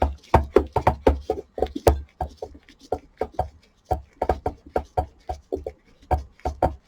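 Quick, irregular run of small knocks and clicks from parts of an old 2003 Zojirushi rice cooker being handled and worked loose during disassembly.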